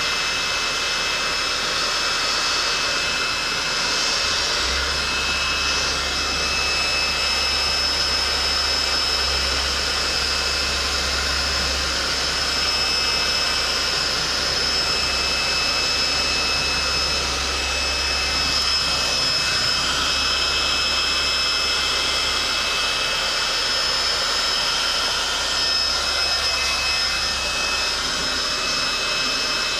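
Electric heat gun blowing steadily while heating faded plastic door-panel trim to restore its colour, a constant rushing airflow with a thin steady whine over it. A low hum joins about five seconds in and fades out around twenty seconds in.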